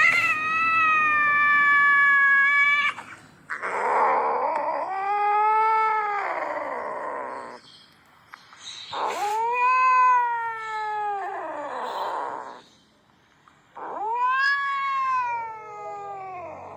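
A cat caterwauling: four long, drawn-out yowls, each rising and then falling in pitch, some with a rough, noisy edge. These are angry, threatening territorial calls.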